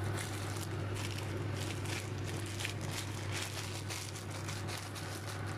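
Beef braising liquid boiling in a wok on a gas burner, with irregular bubbling and popping over a steady low hum.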